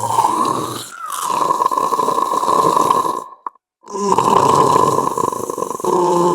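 Horror sound effect: a harsh, rasping creature-like sound, broken by a short dead silence a little past three seconds in, after which another rasping sound starts.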